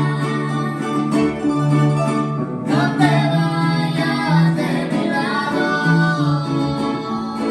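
Music: plucked acoustic guitar with a voice singing a melody over it.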